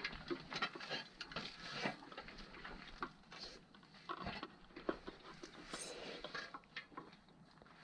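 Irregular small clicks, taps and rustles of hands handling tools and small equipment parts.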